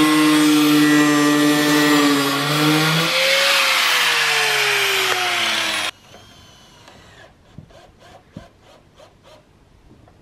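Angle grinder cutting corrugated plastic roofing sheet: a loud, steady whine that slides down in pitch partway through, then cuts off suddenly about six seconds in. A quick series of light knocks, about four or five a second, follows more quietly.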